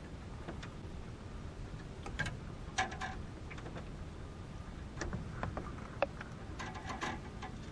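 Scattered small clicks and knocks from a bass being landed and unhooked by hand in a small boat, over a faint low rumble.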